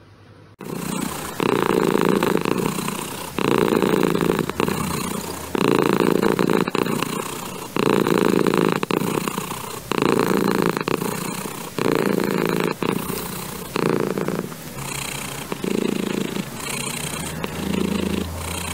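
Domestic cat purring up close, starting about half a second in and swelling louder about every two seconds with each breath.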